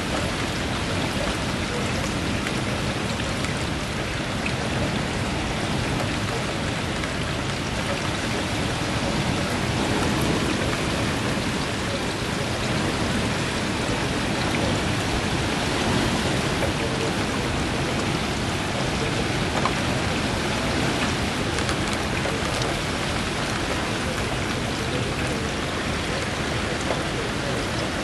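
Strong wind and rain from Hurricane Sandy: a continuous, even rush of noise with small swells in the gusts.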